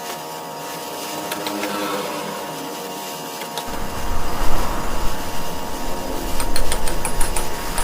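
Power sander running steadily on car body panels, with a low rumble added and louder from about three and a half seconds in, and scattered light ticks near the end.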